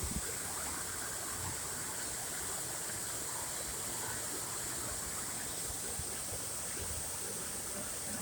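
Steady rush of falling water from an artificial waterfall.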